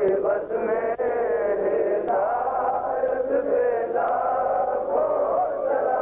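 A group of men chanting together in unison, a devotional chant of long, wavering held lines.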